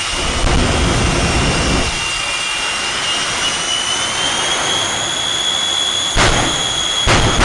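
Jet engine of a jet-powered semi truck running with a steady high whine over a loud rushing exhaust, the whine climbing slightly in pitch about halfway through. Near the end come two sudden loud blasts as flames shoot from its stacks.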